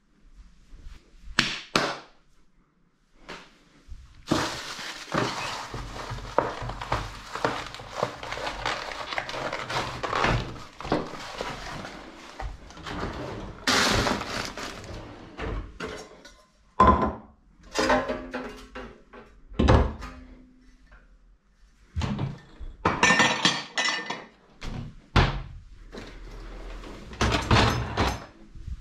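Kitchenware being handled: pots, plates and glasses clinking, knocking and clattering. A long stretch of steady rushing noise runs through the first half, then comes a string of separate knocks and clatters as a pull-out bin under the sink and a dishwasher's racks are worked.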